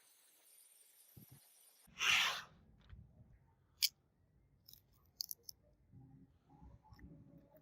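A short hiss lasting about half a second, followed by a sharp click and a few lighter clicks and handling knocks.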